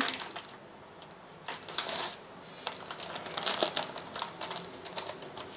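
Quiet, irregular crinkling and light clicks of dry, crisp papads being handled and taken out.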